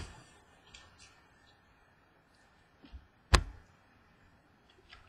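Trading cards being handled, with a few faint ticks, then one sharp click a little over three seconds in as a card goes into a clear plastic card holder.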